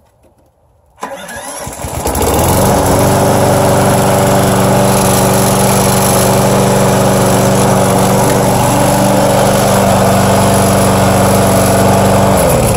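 Briggs and Stratton single-cylinder four-stroke lawnmower engine starting about a second in, building up quickly to a loud, steady run. Near the end it is shut off and winds down with falling pitch.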